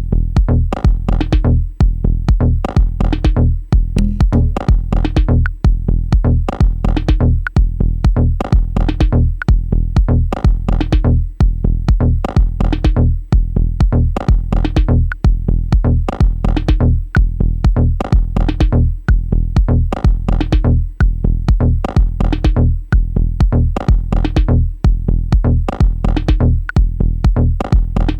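Electronic dub techno groove played from Native Instruments Maschine: a drum-machine beat hitting about twice a second over a steady deep bass.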